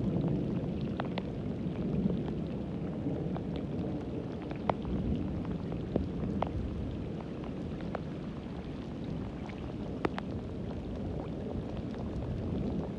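Heavy rain falling steadily on wet ground and standing water, with a few sharp drop taps scattered through it.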